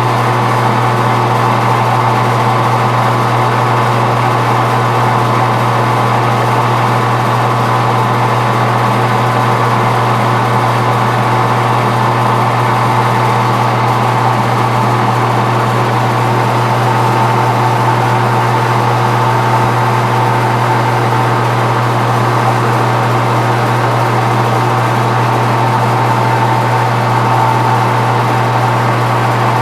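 Metal-turning lathe running steadily, a constant motor hum with an even whine on top, with no breaks or sudden knocks.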